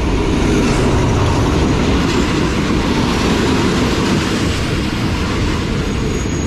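A train passing close by on the track: a loud, steady rumble of wheels and carriages on the rails.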